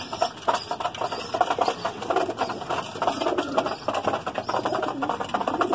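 Domestic pigeons moving about in a loft: a steady run of quick scratchy clicks and rustles, with a few low coos.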